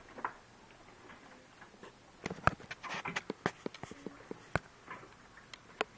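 Scattered clicks, taps and rustling from objects being handled in a classroom, mostly between about two and five seconds in, with two sharp knocks standing out.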